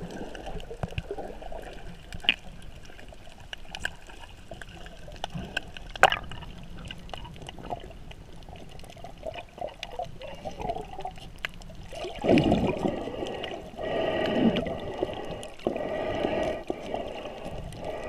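Muffled underwater water noise, gurgling and sloshing, with a few sharp clicks. It grows louder and busier about two-thirds of the way through.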